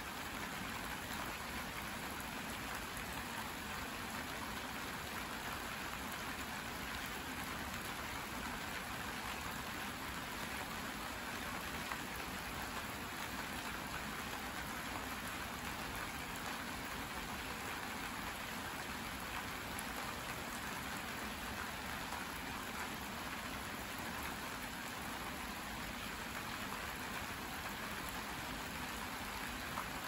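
Steady rain falling: an even, unbroken hiss.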